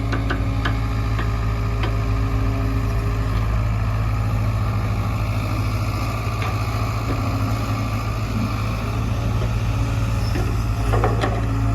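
Diesel engines of a backhoe loader and tractor running steadily at a low, even pitch, with a few scattered sharp knocks and a cluster of them about eleven seconds in.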